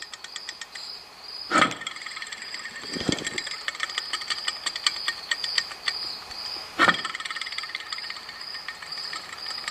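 A tensioner idler pulley off an AC compressor bracket is knocked into a spin by hand twice, about one and a half seconds in and again near seven seconds. Each time it spins on for several seconds with the rough running noise of its bad bearing. A cricket chirps steadily throughout.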